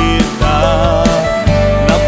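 Instrumental break of a band-arranged Christian pop-rock song: drums and bass under a wavering lead melody.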